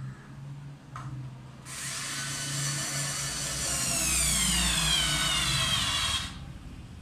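INGCO 4 V cordless screwdriver motor whining as it drives a screw into a block of wood. It starts about two seconds in, slows and drops in pitch as the screw goes in, then cuts off about six seconds in.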